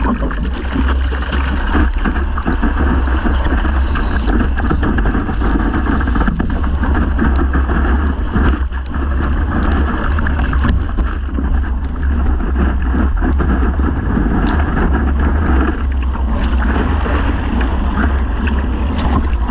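Wind buffeting a surfboard-mounted camera's microphone as a deep steady rumble, over the rush of water and spray along the board as it rides a wave. Sharper splashes hit near the end.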